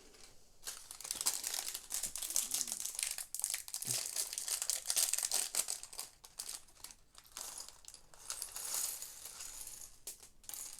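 Plastic Lego parts bag being handled and crinkled, a dense crackling that is strongest for the first few seconds and thins out toward the end.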